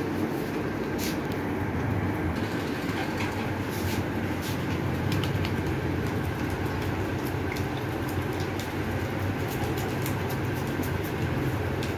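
Steady mechanical hum and rumble of a running machine, with light scratchy ticks over it.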